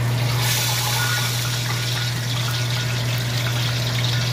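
Breaded mackerel fillets sizzling in hot frying oil, the sizzle growing brighter and louder about half a second in. A steady low hum runs underneath.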